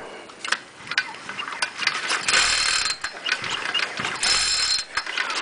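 Recoil starter of a four-stroke string trimmer pulled twice, slowly turning the engine over: each pull is a short rasp of the cord and starter ratchet, about half a second long. A few light clicks come before the first pull.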